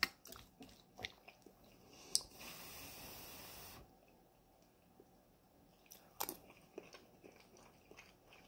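Metal spoon clicking and scraping against a metal bowl of chana masala with rice, and chewing of firm chickpeas and rice. A soft hiss lasting about a second and a half comes in midway.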